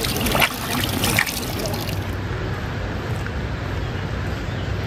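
River water running, with a few sharp strokes in it, that cuts off about two seconds in to a duller steady background with a low hum.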